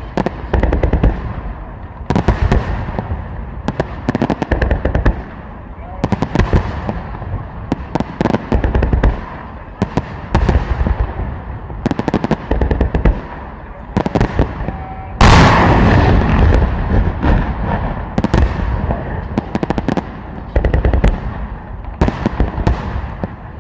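Fireworks display: a deep boom of shells bursting roughly every two seconds, each followed by sharp crackling. One especially loud, longer burst comes about fifteen seconds in.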